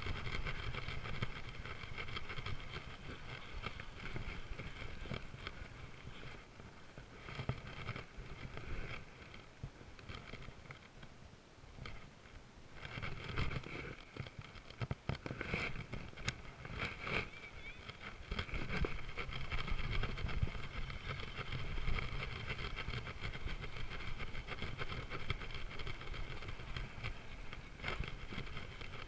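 Outdoor ambience by a pond: a low, uneven wind rumble on the microphone under a steady high-pitched drone that fades and returns. A few sharp clicks come around the middle as the baitcasting rod and reel are handled.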